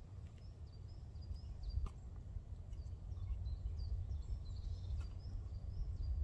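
Small birds chirping in short, repeated high notes over a steady low rumble, with a light click about two seconds in.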